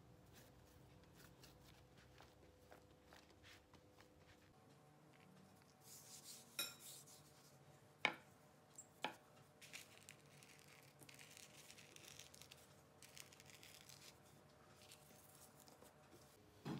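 A plastic rolling pin rolling out bread dough on a silicone mat: faint rubbing with three light knocks, the loudest about eight seconds in, over a quiet steady room hum.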